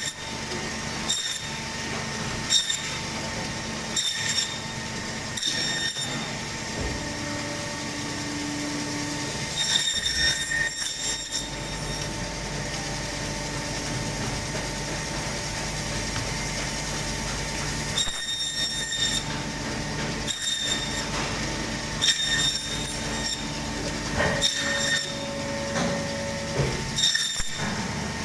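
Meat bandsaw running steadily while the blade saws a goat carcass into curry pieces, with a short, sharp high-pitched rasp each time it cuts through, about every second and a half at first, then in groups.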